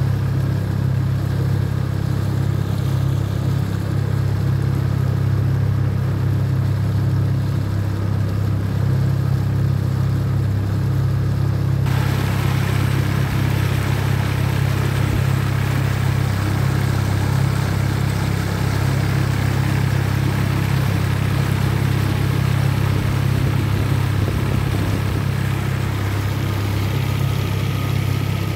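Yamaha 25 hp outboard motor running steadily at an even pitch, pushing an inflatable boat along. About twelve seconds in, a hiss over the engine suddenly gets louder.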